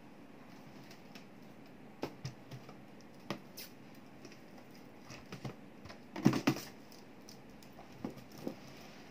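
Cardboard shipping box wrapped in plastic film being handled and set down on a desk: scattered light knocks and rustles, with a louder cluster of knocks and crinkling a little past the middle.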